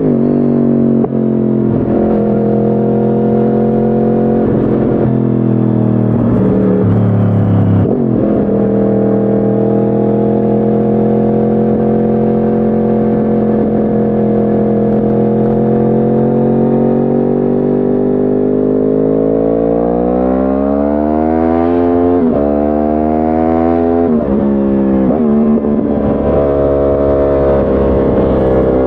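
2010 Yamaha R1's crossplane inline-four through a decatted Akrapovic exhaust, heard onboard at a loud, steady level. The engine note holds steady for long stretches with a few brief shifts in the first several seconds. Later the revs fall away and the note jumps up and down several times, like downshifts with throttle blips, before it settles again near the end.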